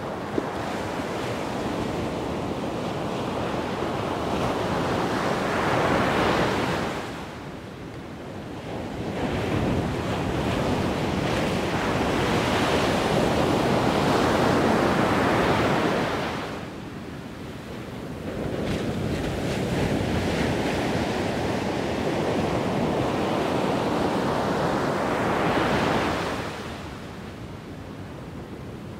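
Wind buffeting the microphone in gusts, a rushing noise that swells and drops back every several seconds, with one short click about half a second in.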